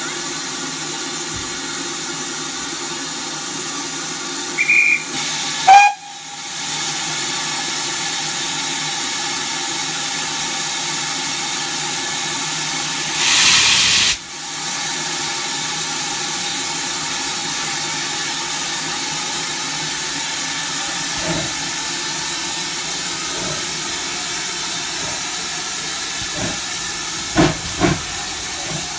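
Steam locomotive hissing steadily, with two brief high-pitched tones about five and six seconds in, the second the loudest sound, and a louder rush of steam around the middle. A few sharp knocks come near the end.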